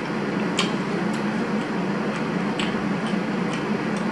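Close-up eating sounds: chewing with sharp, irregular mouth clicks and smacks, about one or two a second, over a steady low hum.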